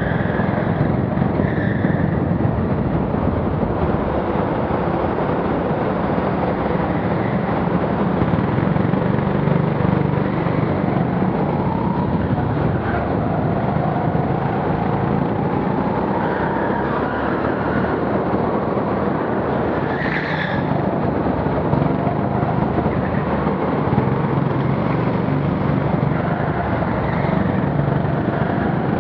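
Go-kart engines running on track, heard from the driver's helmet: a steady drone whose pitch rises and falls as the kart speeds up and slows through the corners.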